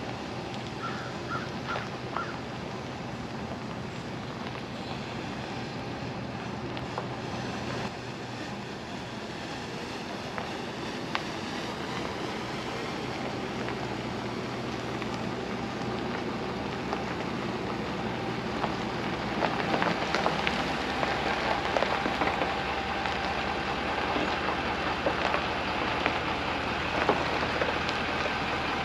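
Pickup truck driving slowly, a steady engine hum under tyre and road noise. About two-thirds of the way through, the tyre noise grows louder and crackly.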